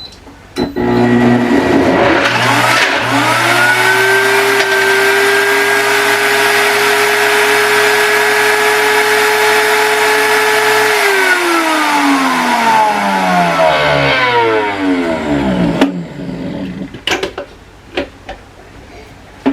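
Amzchef blender motor blending a smoothie with frozen pieces in it. It spins up to a steady high whine with a loud grinding rush, runs for several seconds, then winds down in falling pitch and stops about 16 seconds in. A few clicks follow.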